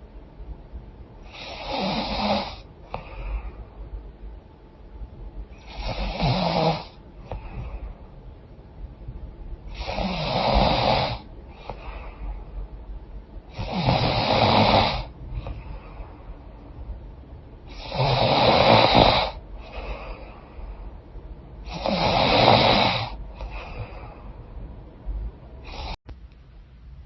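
A woman snoring in her sleep through a congested, runny nose: six loud snores about four seconds apart, each followed by a weaker breath out.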